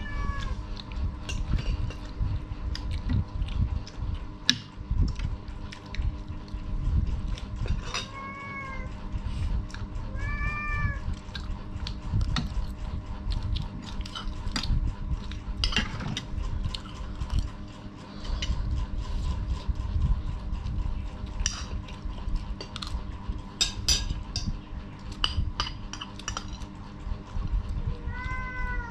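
A cat meowing a few times, short calls that rise and fall in pitch, over clinks of spoons on plates.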